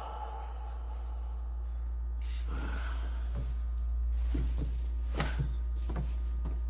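A steady low hum, with a few faint short sounds from about halfway in.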